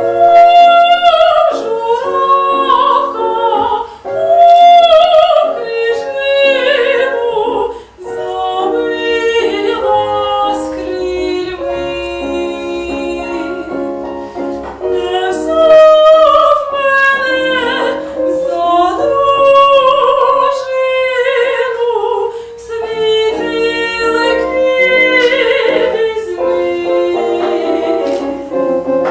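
A woman singing in an operatic style with vibrato, accompanied by piano, starting abruptly.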